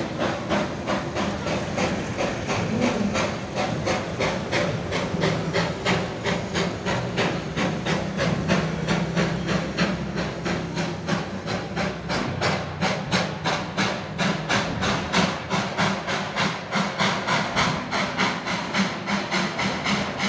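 Darjeeling Himalayan Railway narrow-gauge steam locomotive chuffing as it hauls its coaches away, a quick, even beat of exhaust puffs about four a second with a steady hiss of steam underneath.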